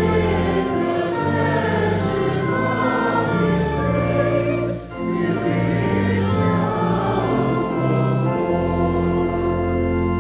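Church congregation singing a hymn verse in unison with pipe-organ accompaniment, with a brief breath between lines about five seconds in and a long held chord near the end.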